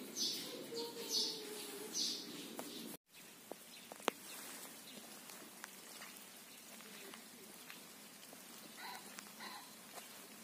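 Small birds chirping: a few short high calls in the first three seconds and two more near the end, over faint outdoor ambience with a few light ticks.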